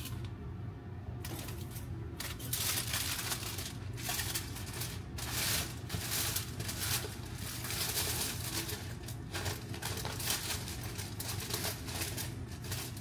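Turkey burgers sizzling and crackling in a frying pan, the crackle picking up about a second in and going on in irregular spurts over a low steady hum.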